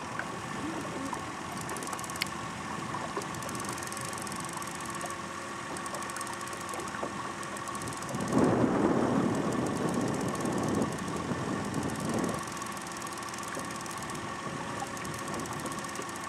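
Boat's outboard motor running steadily at trolling speed, with a louder, rough rushing noise for a few seconds about halfway through.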